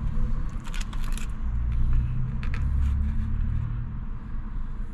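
A plastic fork scrapes and clicks against a styrofoam clamshell tray while scooping chopped pork, over a steady low vehicle rumble that swells in the middle.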